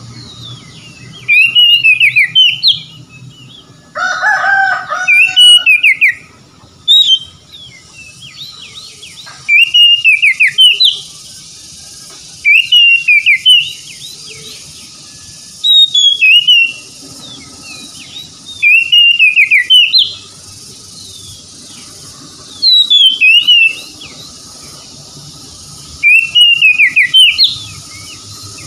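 Male oriental magpie-robin singing: loud whistled phrases of swooping notes, each a second or so long, repeated every two to three seconds, with a lower warbling phrase about four seconds in.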